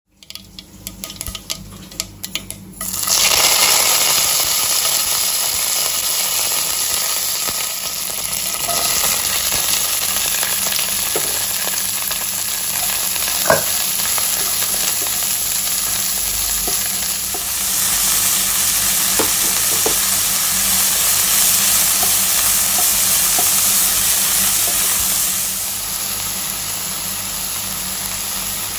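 Mustard seeds crackling in hot oil for the first few seconds, then chopped onions and curry leaves sizzling steadily in the oil as they are stirred and sautéed in a nonstick pan. A few light ticks of a wooden spatula against the pan.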